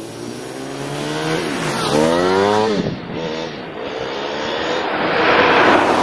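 A motorcycle approaches and passes close by, its engine pitch climbing and then dropping sharply as it goes past about two to three seconds in. Another vehicle's noise builds up loud near the end.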